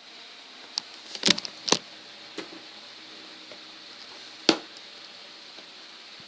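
Several sharp clicks and knocks over a steady hiss: two close together about a second in, another near 2.5 s, and a loud single one about four and a half seconds in.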